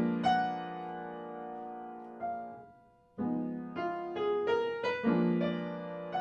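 Slow piano music of struck notes that ring and fade, cutting out briefly about three seconds in and then picking up again.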